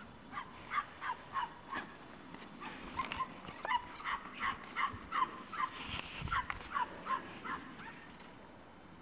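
Shetland sheepdog yipping in a long run of short, high barks, two or three a second, each dropping slightly in pitch, with a brief pause partway and stopping shortly before the end.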